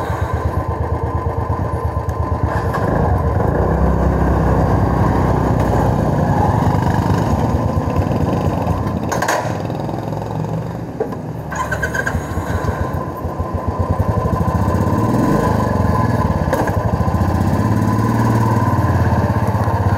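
Single-cylinder motorcycle engine running just after a cold start, a steady low thump whose level swells and eases a few times as it warms up.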